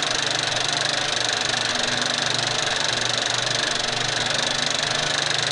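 Film projector running: a steady, even mechanical rattle and whir.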